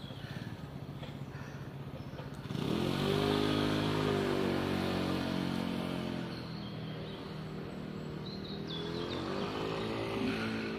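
A motor vehicle's engine, steady and low at first, revs up sharply about two and a half seconds in and runs at a steady pitch. It eases off about six seconds in, then rises again near the end.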